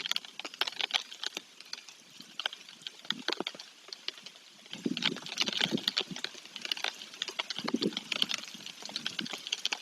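Rain dripping and tapping irregularly onto the nest and the camera's microphone, with a few duller, lower rustles mixed in.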